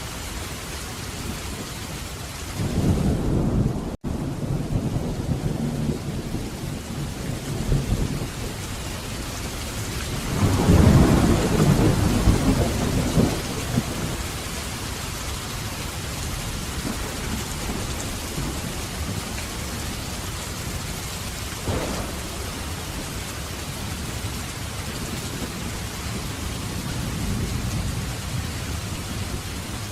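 Steady rain with rolling thunder. A rumble comes about three seconds in, with a brief dropout just after it. The longest and loudest roll comes around eleven seconds in, and fainter rumbles follow later.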